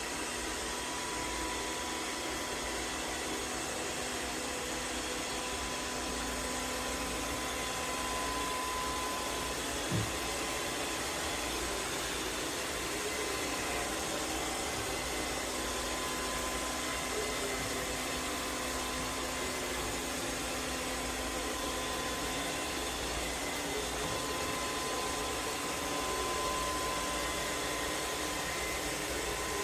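MAMNV BR151 robot vacuum and mop running steadily, a whirring motor noise with a thin steady whine, and a single click about ten seconds in.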